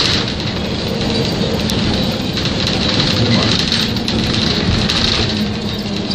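Cabin noise inside a moving city bus: the engine runs with a steady low hum under a dense, even wash of road and body noise.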